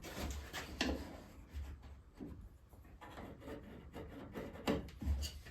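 Wooden pieces being handled and fitted: irregular rubbing and scraping of wood with a few light knocks.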